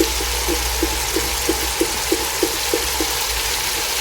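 Steady sizzle of onions frying in oil in a pan. Over it comes a light, regular knocking about three times a second that stops about three seconds in.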